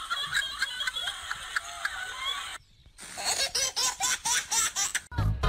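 Laughter in quick pulses, broken by a short silence about two and a half seconds in and then resuming. Music with a heavy bass comes in just before the end.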